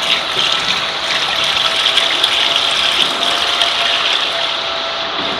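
Engine oil pouring in a steady gushing stream during a Subaru EJ205 boxer engine oil change. It starts right away and eases off near the end, over a steady background whir.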